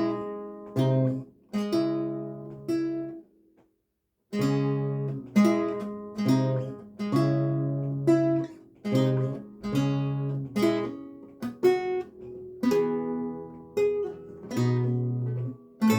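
Renaissance lute played solo: plucked chords and single notes, each ringing and dying away. Playing stops briefly about three and a half seconds in, then resumes.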